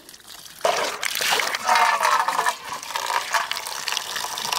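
Water from a plastic pipe pouring and splashing into a steel bowl of freshly picked mustard greens. It starts suddenly about half a second in.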